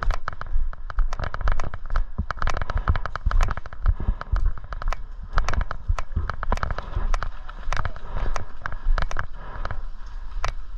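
Airsoft guns firing in an exchange of fire: a dense, irregular run of sharp pops and cracks, several a second.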